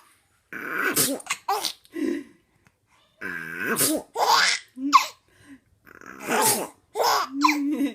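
A woman making comic Donald Duck–style sneezes, answered by a baby's bursts of laughter, in a run of short vocal outbursts.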